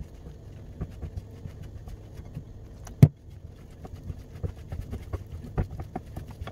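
Wooden spoon stirring a stiff flour-and-coconut dough in a glass bowl: a run of soft scrapes and knocks against the bowl, with one sharp knock about three seconds in.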